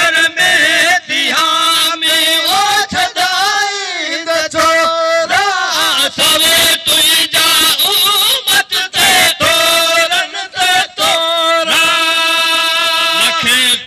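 A male voice chanting a Sindhi naat (devotional poem in praise of the Prophet), unaccompanied, in long melodic phrases with held notes that bend and waver in pitch, broken by short pauses for breath.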